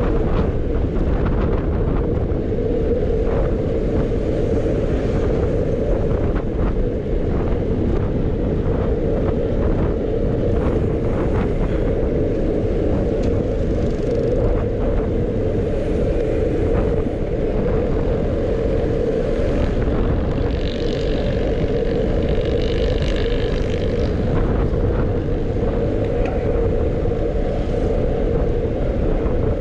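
Steady wind and road rush picked up by a camera riding along on a road bicycle, with a constant hum under it. A faint pitched sound rises briefly out of it about two thirds of the way through.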